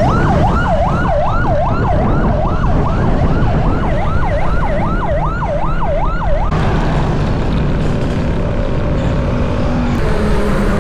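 Emergency vehicle siren on a fast yelp, its pitch sweeping up and down about twice a second over a steady low rumble. It cuts off suddenly about two-thirds of the way through.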